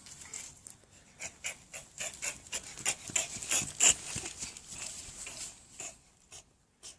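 Quick, uneven panting, several breaths a second, loudest in the middle and tailing off near the end.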